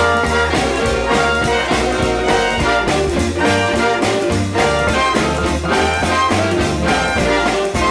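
Big band swing music: a brass and saxophone section playing over a steady beat.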